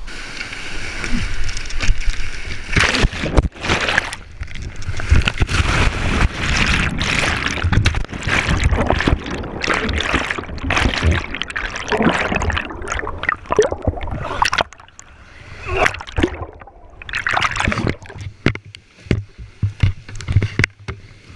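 Whitewater rushing and splashing around a kayak in uneven surges, with a low rumble on the microphone. It eases off briefly about three quarters of the way through.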